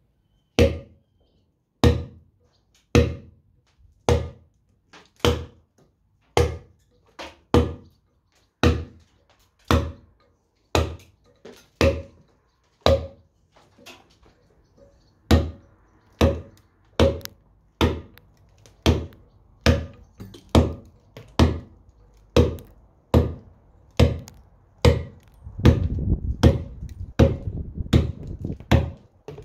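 Round carving mallet striking a letter-cutting chisel into stone as Roman numerals are cut: steady sharp knocks about once a second, with a short pause about halfway and quicker strokes near the end. A low rumble sits under the last few strokes.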